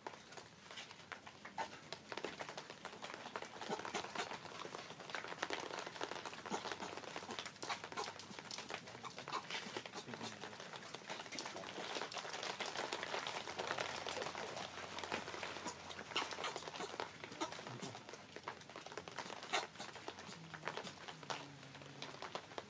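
A monkey chewing and handling small fruits, giving irregular small clicks and crunches over a steady outdoor hiss.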